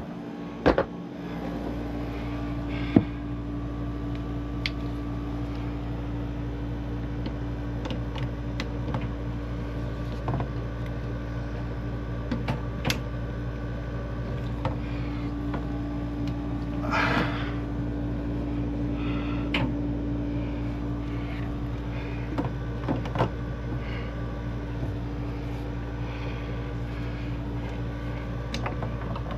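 A PEX fitting being crimped by hand with a copper crimp ring: scattered light metallic clicks and knocks of the crimp tool and fitting being handled, with a short rasping scrape about seventeen seconds in. A steady hum runs underneath.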